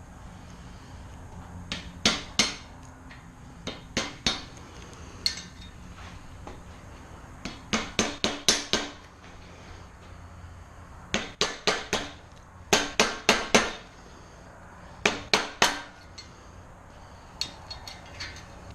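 Hammer striking metal in quick bursts of several ringing blows, with short pauses between the bursts.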